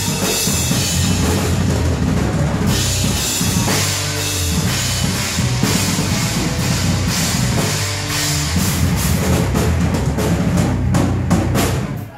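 A live band playing loud: a drum kit with bass drum, snare and steady cymbals under sustained electric guitar notes. The band cuts off abruptly at the very end.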